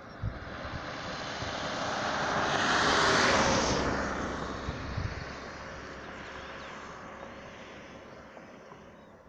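A van driving past on the road: its tyre and engine noise builds to a peak about three seconds in, then slowly fades away.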